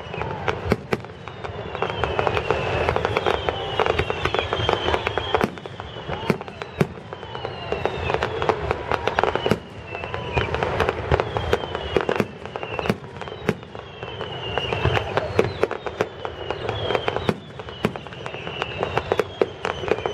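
Fireworks display: a steady barrage of sharp bangs and crackling, with many short falling whistles repeating through it.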